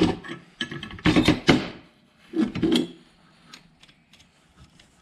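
Metal clanks and scrapes as steel brackets and bolts are handled and fitted onto a Nissan Leaf electric power steering column on a workbench. A few clusters of knocks come in the first three seconds, then only faint ticks.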